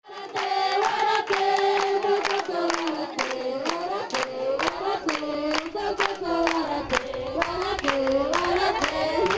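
A group of women and children singing a song together, clapping their hands steadily to the beat.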